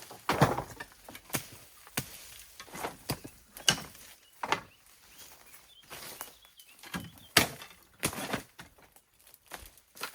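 Irregular sharp cracks and thuds, about a dozen, from branches and brush being cut, broken and handled during manual land clearing.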